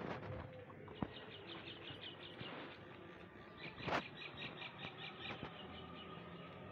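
Faint bird chirping in two quick runs of short, evenly spaced chirps, about seven a second. A sharp click comes about a second in, and a brief louder rustle of movement about four seconds in.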